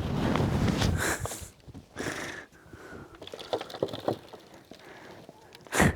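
Rustling and scuffing of soil and leaves as a large pepper plant is pulled up and handled, with a sharp knock near the end.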